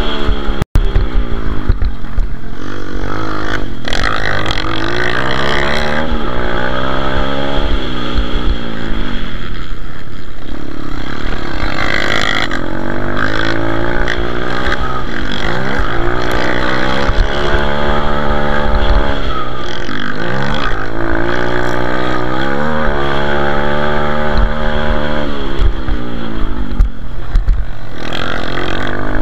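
Onboard sound of a pit bike's single-cylinder four-stroke engine under race throttle. It revs up repeatedly and drops back sharply every second or two as the rider shifts and backs off for jumps and turns, with wind buffeting and rumble from the rough track on the microphone.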